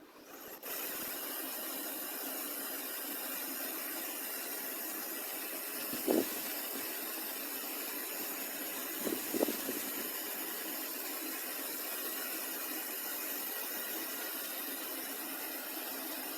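Shark TurboBlade bladeless tower fan running: a steady rush of air with faint steady tones in it, coming on about half a second in. Two short soft knocks about six and nine seconds in.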